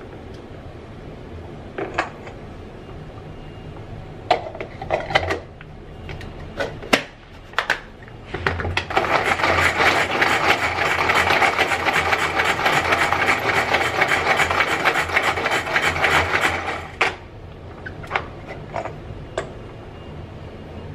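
Pull-cord manual food chopper being worked: its green handle is pulled again and again, each pull spinning the blades inside the container with a fast, dense ratcheting whirr that runs for about eight seconds before stopping suddenly. A few sharp clicks and knocks from the plastic container being handled come before and after it.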